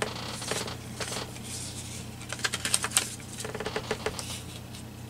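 Paper pieces handled and pressed down onto a junk journal page: a soft rustle of paper, then two quick runs of small crackling clicks near the middle.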